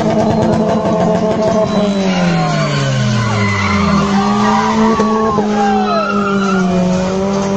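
Toyota RunX engine held at high revs while its tyres spin and squeal on tarmac in a burnout. A second engine note slides down in pitch between about two and four seconds in.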